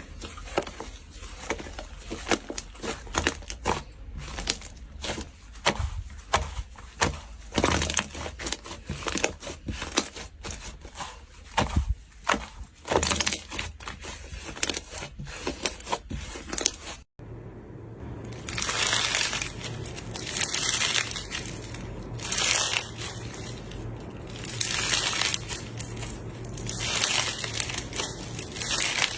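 Cup slime being pressed and squeezed by hand: dense rapid crackling pops at first, then, after a sudden cut about two-thirds of the way in, slower repeated squishing presses that come in swells.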